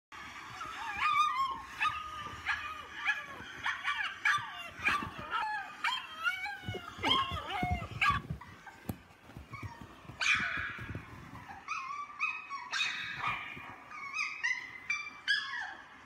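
Dogs howling and yipping: a run of short, high calls that rise and fall in pitch, one after another, with a few low handling thumps in the middle.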